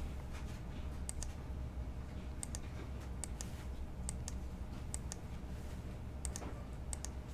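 Computer mouse button clicking, a quick press-and-release pair about every one to one and a half seconds, repeatedly re-running a web page's randomizer, over a low steady hum.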